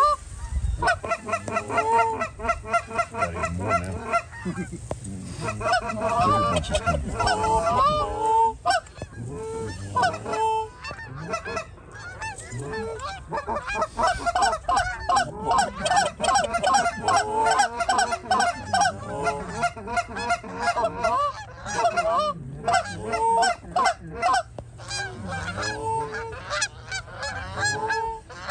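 Flock of Canada geese honking and clucking: many overlapping calls, repeating without a break.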